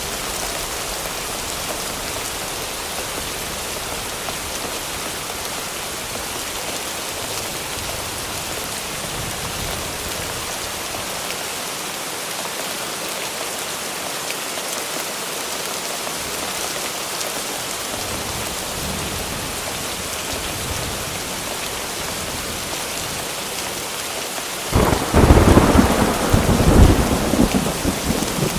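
Thunderstorm: steady rain hiss, then about 25 seconds in a sudden loud thunderclap that rumbles on for a few seconds.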